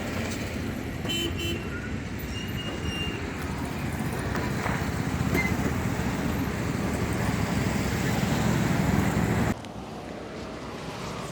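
Busy road traffic with engines running and a few short horn toots, cutting off abruptly near the end to a quieter background.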